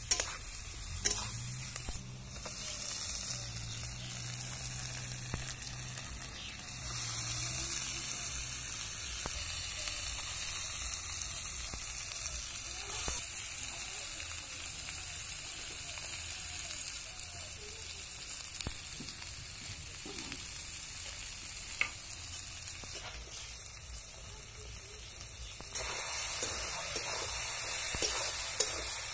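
Food sizzling in hot oil in a black iron kadai, stirred and scraped with a metal spatula, with a few sharp clicks of metal on the pan. First sliced onions are frying, then pieces of raw goat meat.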